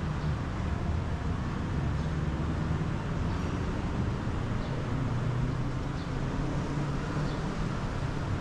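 Steady city traffic noise: a low hum of engines and road noise, with a few faint ticks.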